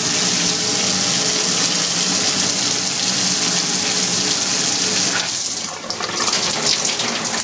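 Flood coolant from three half-inch Loc-Line hoses splashing hard against the walls and floor of a CNC mill enclosure, with the coolant pump humming faintly underneath. About five seconds in the pump stops: the rush falls away and the streams dwindle to trickles and scattered drips.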